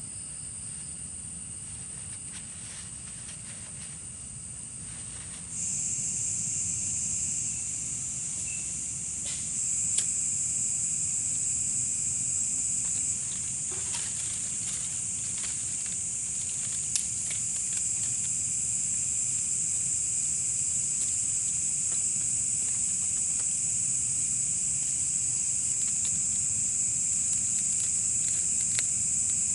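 Night insects trilling in a steady high chorus that steps louder about five seconds in and again about ten seconds in. A few sharp clicks stand out, one near the ten-second step and one further on.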